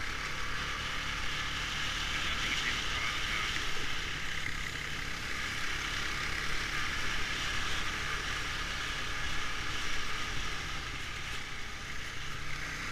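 Honda ATV engine running steadily while riding, a constant low engine note under a steady rush of noise.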